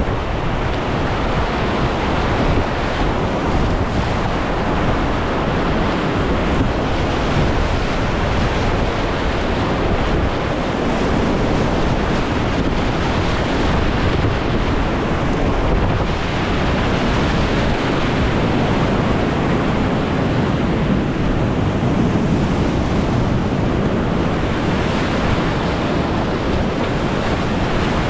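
Steady, loud rush of whitewater rapids, with wind buffeting the microphone.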